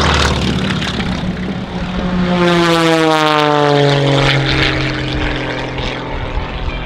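Aerobatic propeller biplane flying past under power, its engine and propeller buzz falling steadily in pitch as it goes by from about two seconds in.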